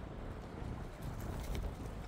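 Wind rumbling on the microphone, with a few crunching footsteps of sandals on loose rocky gravel in the second half.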